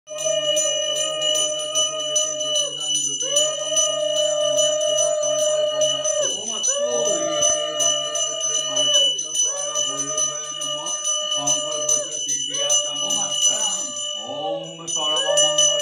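A small brass hand bell (puja ghanti) rung continuously in rapid strokes, with a steady high ring, over long held droning tones that each last about three seconds, bend at their ends, and are renewed five or six times.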